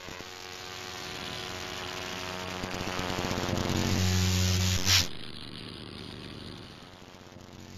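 Produced intro sound effect: a noisy riser with a low drone underneath swells for about five seconds to a sudden hit, then fades away.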